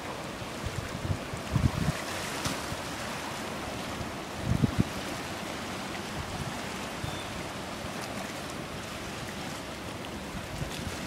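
Waves and flowing water at a river mouth, a steady rushing wash, with wind buffeting the microphone in low gusts, strongest about a second and a half in and again around four and a half seconds in.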